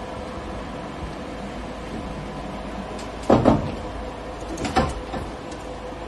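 Hand pallet jack loaded with boxes rolled out of a box truck's cargo bay onto its metal tail lift: two loud clunks about a second and a half apart, over a steady hum.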